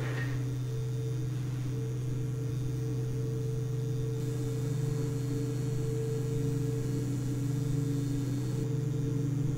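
Steady low electrical hum with two fainter, higher held tones above it, a sci-fi drone standing for the sparking time machine. There is no crackle of sparks in it.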